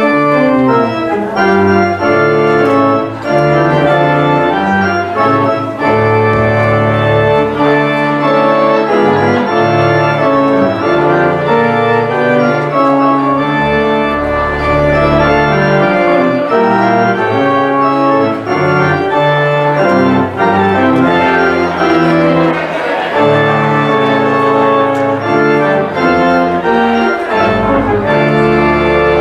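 Church organ playing the postlude: full sustained chords over a moving bass line, steady and loud throughout.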